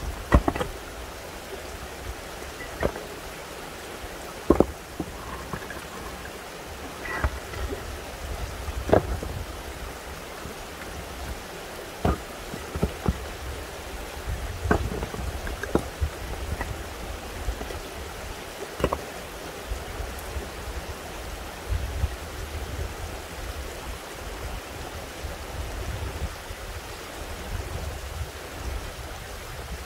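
Stones knocking and clattering as rocks are pulled out of a dry stone wall and set down, about ten sharp knocks scattered irregularly, over a steady rushing background noise.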